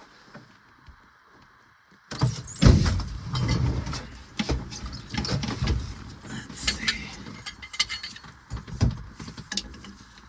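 Metal clanking, knocking and scraping of hand tools working on the backhoe's hydraulic hose fittings, starting suddenly about two seconds in and going on in irregular strokes.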